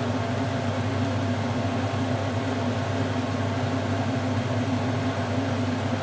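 A steady mechanical hum with a constant hiss.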